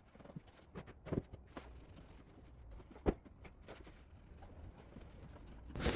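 Faint, scattered light knocks and clicks from handling the kitchen cabinetry: a few small taps around the first second and one sharper knock about three seconds in, over quiet room noise.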